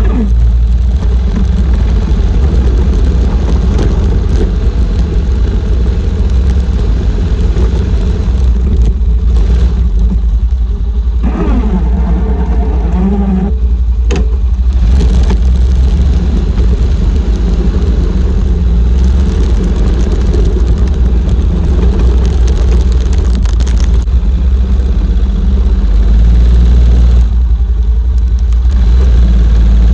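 Four-wheeler (ATV) engine running steadily under load, with a loud low rumble and a brief change in pitch about eleven seconds in.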